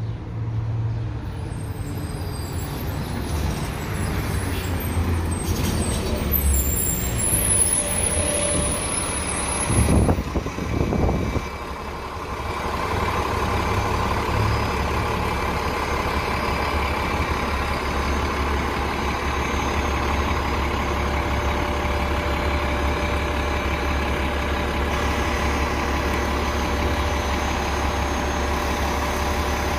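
City transit bus pulling up to a stop: brakes squeal high as it slows, a short loud burst of air comes about ten seconds in, then the engine idles with a steady low hum at the curb.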